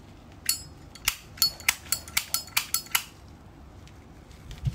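Zippo lighter's metal lid being flicked open and snapped shut, a quick run of sharp metallic clacks with a ringing tone during the first three seconds, then a single low thump near the end.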